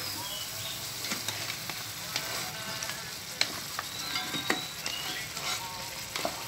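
Crabs in a buttery, creamy sauce sizzling and bubbling in a pot as they are stirred and turned, with scattered light clicks of the stirring against the pot.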